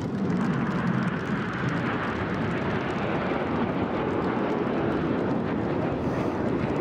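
Jet noise from the Red Arrows' BAE Hawk T1 trainers as the formation breaks apart overhead: a steady broad rush of several turbofan engines that swells at the start and holds.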